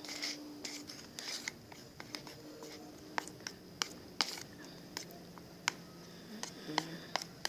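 A spoon stirring thickened shampoo and salt in a small pot, making faint, irregular clicks and scrapes against the container.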